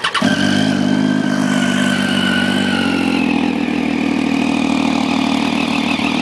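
2013 Triumph Street Triple R's 675 cc inline-three with an aftermarket exhaust catching as it starts, then idling steadily; the idle eases down a little about three seconds in.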